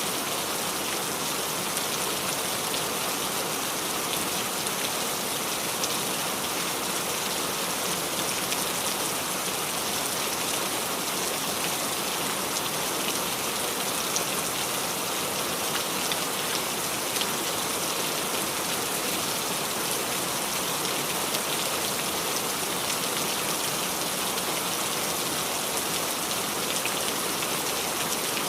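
Steady rain falling on the leaves of a small tree, a constant hiss with many small drop taps and drips.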